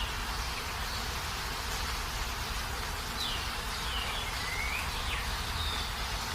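A steady high buzzing hiss, with a few faint short chirps that slide in pitch about halfway through.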